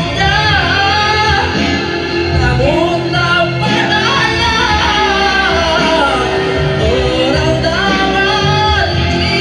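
A man singing a pop song into a microphone over recorded backing music, amplified through a PA in a large hall.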